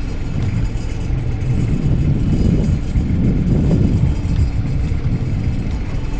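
Steady low rumble of a small fishing boat at sea, its engine running with wind buffeting the microphone.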